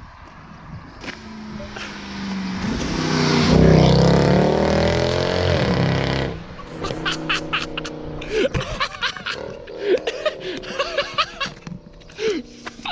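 Mercedes C63 AMG's V8 accelerating hard past on full throttle: a loud engine note builds, climbs in pitch, then drops and cuts off sharply about six seconds in. Scattered short knocks and brief voice-like sounds follow.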